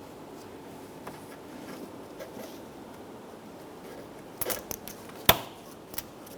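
Light clicks of hands and parts handled at the door jamb trim, then one sharp click about five seconds in and a smaller one just before the end.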